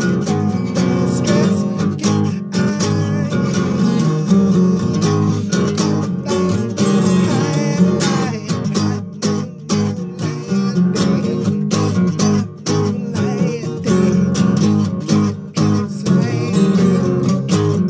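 Music from a song demo: a guitar strummed in a steady rhythm.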